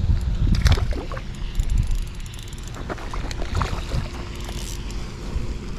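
Wind buffeting the microphone with a low rumble, with scattered clicks and knocks from the spinning reel being cranked and handled as a fish is reeled in.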